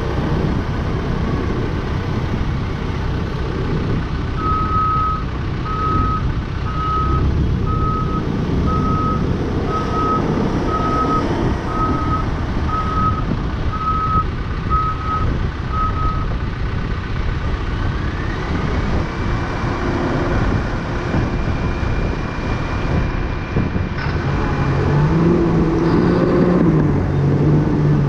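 Cat D5K dozer's diesel engine running close by, while a Cat 740B articulated dump truck's reverse alarm beeps about a dozen times, one beep a second, until about halfway through. Then a whine rises and holds, and the engine note grows louder near the end as the truck raises its dump body.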